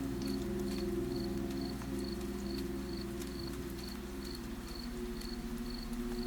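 A cricket chirping steadily, short high chirps about two to three times a second, over a low sustained drone.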